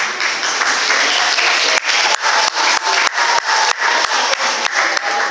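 Audience applause breaking out as a dance ends. From about two seconds in it falls into rhythmic clapping in unison, about three claps a second.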